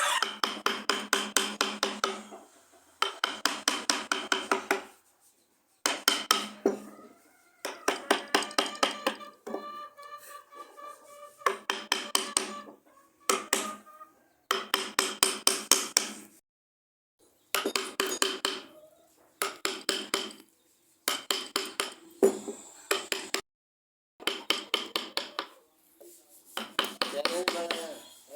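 Rapid metallic tapping, many strikes a second with a ringing tone, in bursts of one to two seconds broken by abrupt silences.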